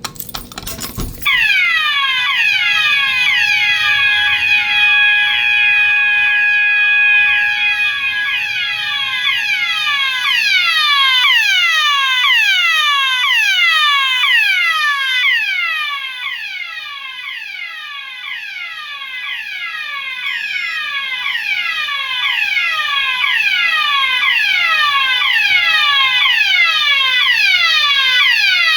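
System Sensor MASS multitone fire alarm sounders going off about a second in: the fire alarm system in alarm. A loud tone of falling sweeps repeats a little faster than once a second, over steady tones that weaken after about ten seconds.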